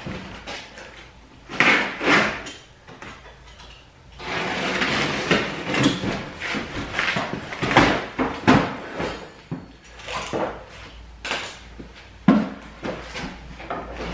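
Large cardboard shipping box being handled and folded open: rustling and scraping of cardboard with several sharp knocks and thumps.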